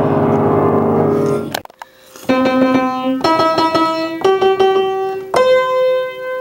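A loud, dense crash of sound stops about one and a half seconds in. After a short pause a piano plays four slow notes or chords, each held about a second, and the last one cuts off at the end.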